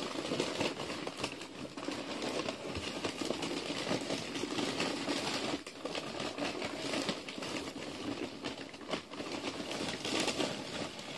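Packing material, including bubble wrap, rustling and crinkling steadily inside a cardboard box as a toy is dug out, with many small clicks and knocks.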